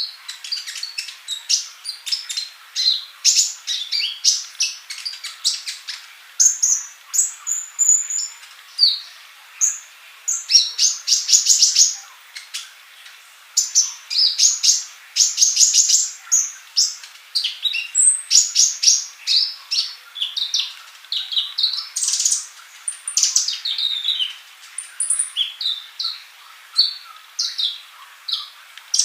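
Male olive-backed sunbird singing vigorously: a continuous stream of rapid, high chirps and fast trills with only brief pauses.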